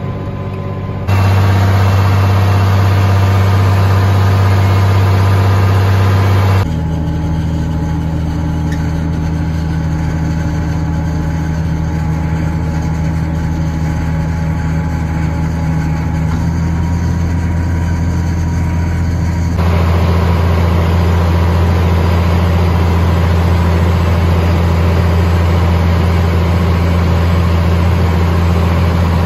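Diesel engines of a self-propelled forage harvester and a tractor pulling a silage wagon running steadily while chopping corn silage: a loud, steady low hum. Its level and tone change abruptly three times, about a second in, near 7 seconds and near 20 seconds.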